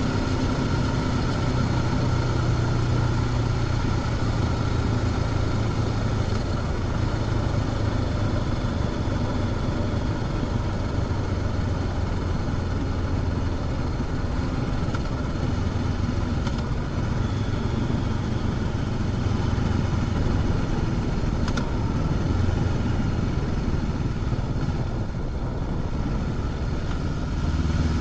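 Honda CB500X motorcycle's parallel-twin engine running with the stock exhaust while riding at a fairly steady pace, the engine note easing slightly near the end before picking up again.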